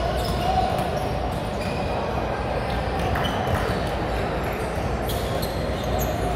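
Basketballs bouncing on a hardwood gym floor, heard as scattered sharp thuds over a steady murmur of voices. Everything echoes in a large hall.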